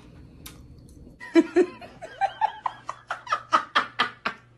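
A person laughing: a run of short bursts, about four a second, starting about a second in.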